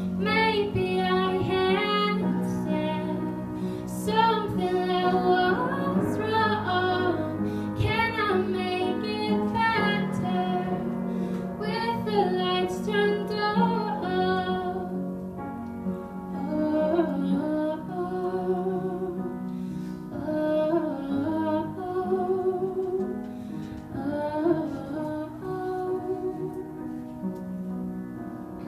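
Young woman singing a song solo into a microphone, in phrases with wavering held notes, over a steady instrumental backing. The singing is fuller in the first half and softer in the second.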